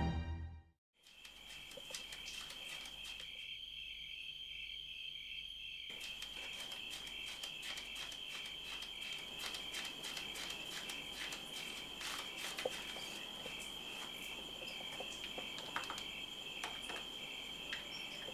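Crickets trilling steadily in a night-time ambience, with a few soft clicks scattered through it.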